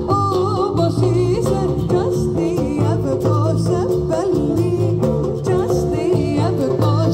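Live band playing Greek music: plucked strings over a steady low beat, with a wavering melody line above.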